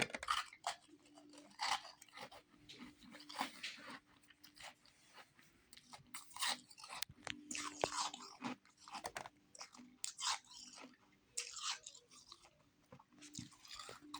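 A person biting and chewing refrozen powdery ice close to the microphone: repeated crisp crunches in irregular bunches, each chewing run lasting about a second with short pauses between.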